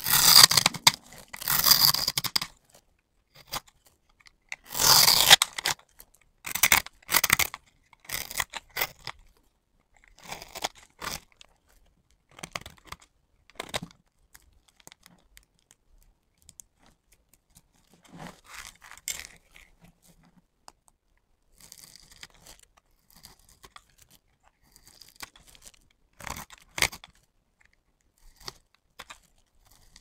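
Dry bar soap, scored in a grid, being shaved with a utility-knife blade: crisp crunching and crackling as the little soap cubes break away. The loudest cuts come in two long bursts at the start and about five seconds in. After that come shorter, quieter crackles as soap fragments are crumbled between the fingers.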